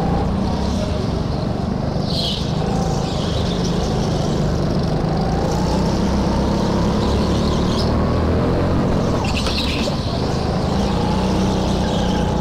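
Go-kart engine running hard, its note rising and falling through the corners, with the tyres squealing briefly on the smooth concrete floor about two seconds in and again near ten seconds.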